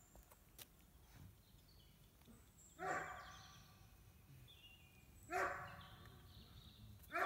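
A dog barking three times, about two and a half seconds apart.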